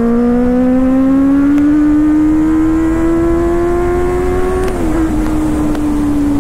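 Benelli 600i inline-four motorcycle engine accelerating on the open road, its note climbing steadily. About five seconds in it drops sharply at an upshift, then eases gently down.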